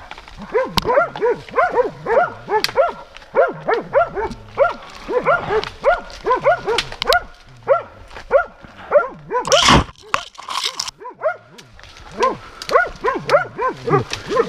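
A hunting dog barking in a fast, unbroken run of barks, baying at a shot wild boar down in the thicket. About nine and a half seconds in comes a short, loud crash of noise, and the barking pauses briefly before starting again.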